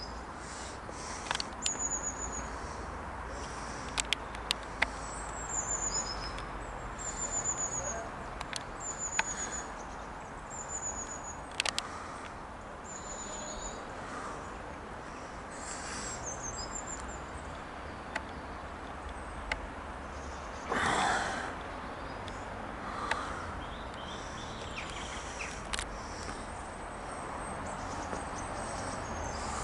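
Small garden birds chirping: a run of short, high notes, each sliding downward, over a steady outdoor hiss. There are a few sharp clicks, and a brief louder rush of noise comes about 21 seconds in.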